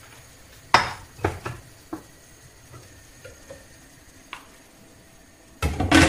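Sharp clinks and knocks of cookware, a few in the first two seconds, then a louder clatter near the end as a lid is set onto the frying pan.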